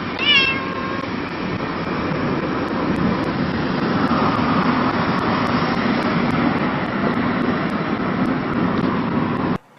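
A cat meows once, a short falling call about half a second in, over a steady rushing noise that runs on for several seconds and cuts off suddenly near the end.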